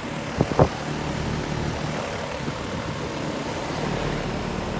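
2021 Ruud 2-ton central air conditioner's outdoor unit running steadily, a fan's rushing noise over a low steady hum. A couple of short sharp knocks about half a second in.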